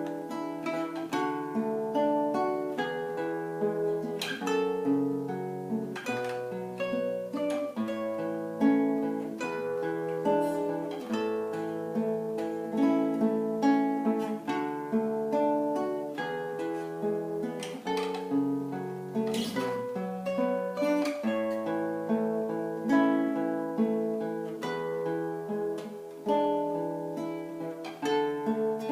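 Acoustic guitar playing a continuous piece, with plucked melody notes over a moving bass line.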